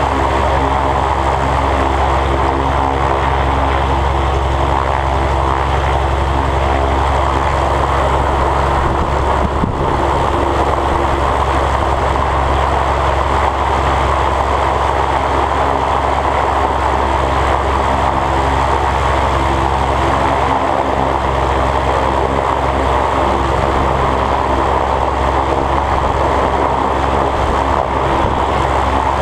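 Aerobatic biplane's piston engine and propeller running steadily at low power while the plane taxis on grass. The drone is even and unchanging throughout.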